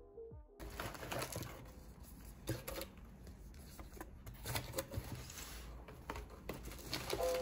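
Close handling noise: rustling with scattered light clicks and taps as objects are moved about by hand.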